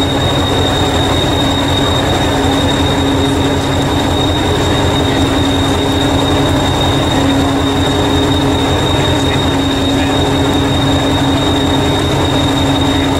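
Diesel engine of a Hastings diesel-electric multiple unit idling at a standstill: a steady fast low beat, with a constant hum and a high whine over it.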